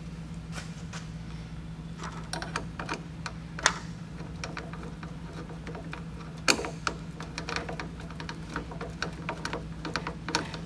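Irregular light clicks and taps of hands handling wires, wire nuts and plastic connectors in the open control compartment of a tankless water heater, with a couple of sharper clicks, over a steady low hum.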